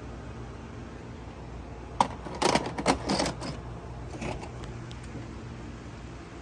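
A VHS cassette pushed into a VCR: a sharp click, then a quick run of plastic clicks and clunks over about a second and a half as the loading mechanism takes the tape in, and a lighter click about a second later. A steady low hum lies underneath.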